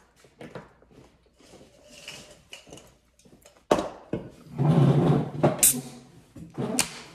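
A glass with ice set down on a table with a knock, followed by about a second of clattering. Near the end, an aluminium soda can's pull tab is cracked open with a sharp hiss.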